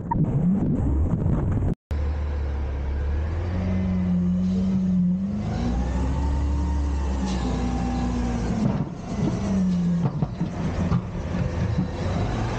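Front-load garbage truck's diesel engine running close by, revving up over a few seconds and then easing back down. The sound cuts out briefly about two seconds in.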